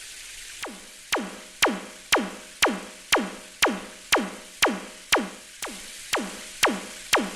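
Synthesized kick drum beating steadily about twice a second, each beat a quick downward sweep in pitch, starting about half a second in.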